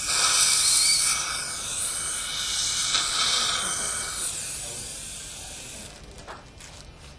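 A loud, steady hiss of rushing air that swells and fades, then stops about six seconds in, leaving a few faint clicks.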